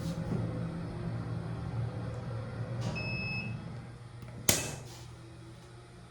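Hydraulic elevator car in motion, its pump motor humming steadily, with a short electronic beep about three seconds in. A loud clunk comes about four and a half seconds in, and the sound is quieter after it.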